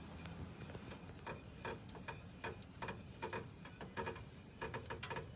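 Car's small spare-tire screw jack being cranked down with its handle: a string of light metallic clicks, about two or three a second, starting about a second in.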